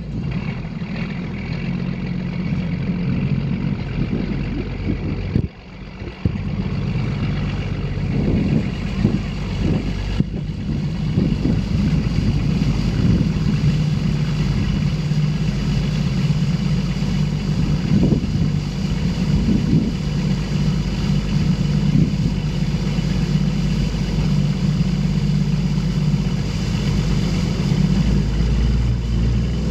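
A boat's engine running steadily at speed, with water and wind noise over it; the sound briefly drops out about five and a half seconds in.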